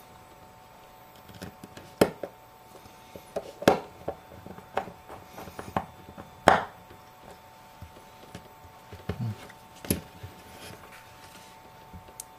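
Irregular sharp clicks and taps of small repair tools and iPhone parts being handled and fitted together on a work surface, with a few louder clicks about two, four, six and a half and ten seconds in.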